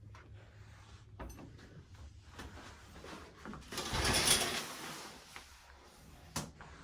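A short scraping, rustling noise about four seconds in, lasting about a second, amid faint scattered knocks in a small room.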